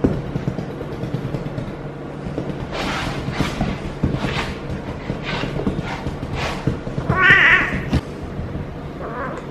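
Female cat in heat caterwauling: one loud, drawn-out yowl about seven seconds in and a shorter, fainter one near the end. Before the yowls come repeated rubbing strokes of a hand petting her fur.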